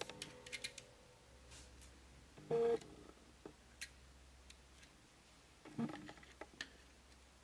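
Faint light clicks and taps of a plastic pry tool on a plastic case and circuit board. A short electronic beep sounds about two and a half seconds in, and a softer knock comes near six seconds.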